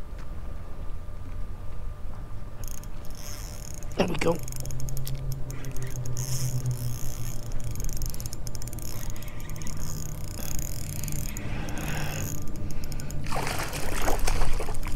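Fishing reel clicking and ratcheting while a hooked redfish is fought, with a low steady hum underneath and louder handling noise near the end.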